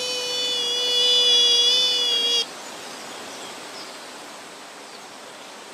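A high, long held vocal cry that slides up at the start, stays on one steady note for about two and a half seconds and then cuts off abruptly. After it only steady outdoor background noise remains.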